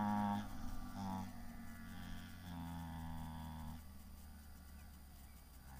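Low, held humming notes, a few in a row at slightly different pitches, dying away after about four seconds and leaving only faint background.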